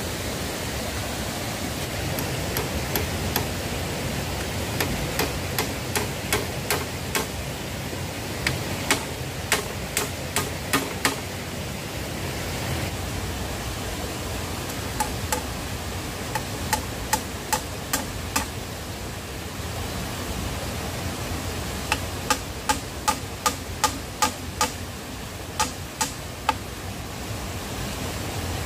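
Hammer blows on bamboo, sharp knocks in several short runs of about three a second, with pauses between them. A steady rushing noise lies under them.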